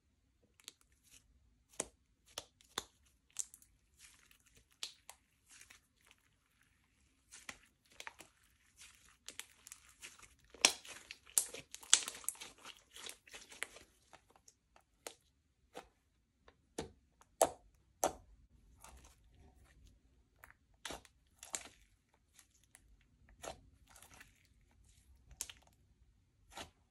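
Slime being squished and stretched by hand, giving irregular sharp crackles and pops that come thickest about ten to fourteen seconds in.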